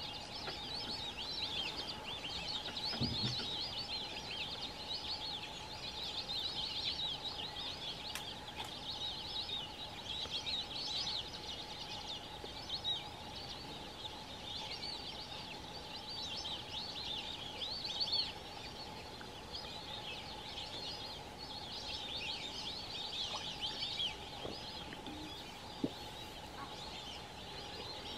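A flock of white-faced whistling ducks calling continuously: many overlapping high, thin whistles that swell and ease in waves.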